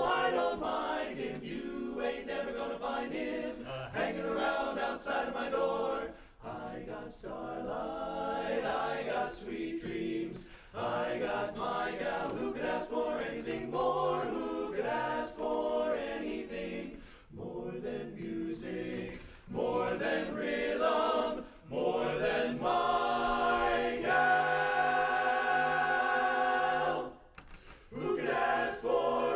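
Men's barbershop chorus singing a cappella in close harmony, phrase by phrase with short breaths between, swelling into a long held chord a few seconds before the end.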